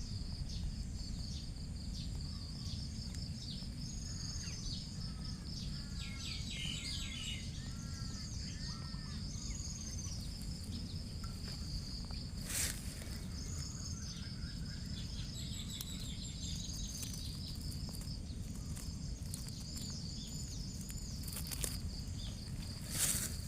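Rural outdoor ambience: a steady high-pitched insect trill with scattered bird chirps, including a short run of repeated calls early on, over a constant low rumble. A few sharp knocks sound, one about halfway through and one near the end.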